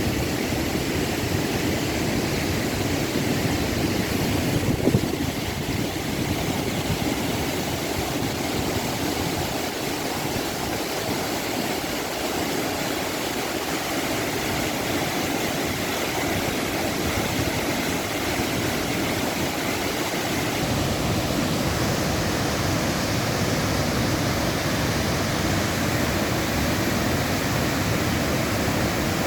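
Steady rushing roar of the Upper Düden waterfall's falling water, with one short thump about five seconds in.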